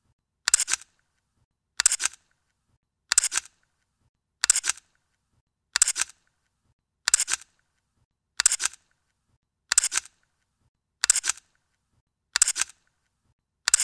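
Camera shutter clicking over and over, one short shutter sound about every 1.3 seconds with silence in between.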